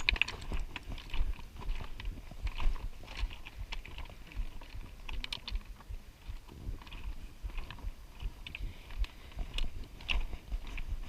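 Footsteps crunching and scraping on loose rock and gravel, an uneven run of small clicks and crunches, with low thumps underneath.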